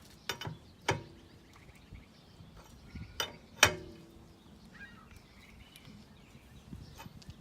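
A few sharp metallic clanks, each with a short ring, from a wrench fitting onto and turning the wheel's lug nuts as they are tightened.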